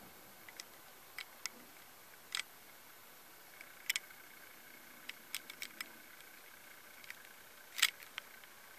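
Cats grooming: scattered short, sharp licking clicks and smacks, irregularly spaced, with a louder one near the end, over a faint steady hiss.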